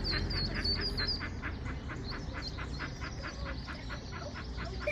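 Mallard ducklings peeping in a quick high series for about the first second, over a steady run of short, rapid duck calls at about five a second, typical of a hen mallard calling to her brood.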